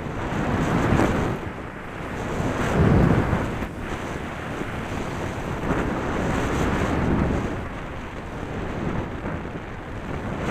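Wind rushing over an action camera's microphone while a snowboard slides and carves down through chopped-up snow, the rush of wind and board hiss rising and falling in swells.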